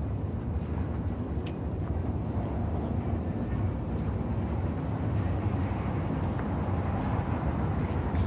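Steady low rumble of road traffic in an open city street soundscape, with a few faint ticks.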